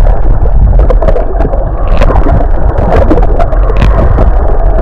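Motorboat running over open water: a steady, loud engine rumble mixed with rushing and splashing water.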